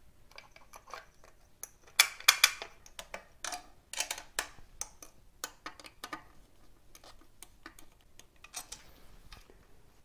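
Small metal clicks and clinks from stove bolts, nuts and a screwdriver as a voltage regulator is bolted to a bicycle's metal rear rack. The sharpest cluster of clicks comes about two seconds in, with more about four seconds in.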